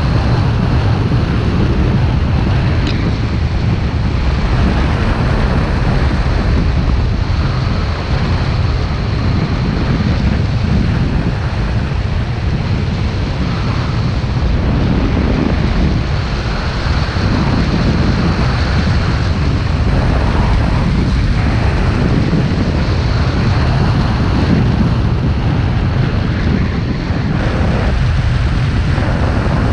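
Wind buffeting the microphone: a loud, steady rush, heaviest in the low end and unbroken throughout.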